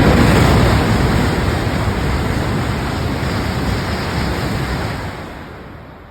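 JR East Shinkansen train passing through the station at speed without stopping: a loud rushing noise that is strongest at the start, holds steady, and fades away over the last second.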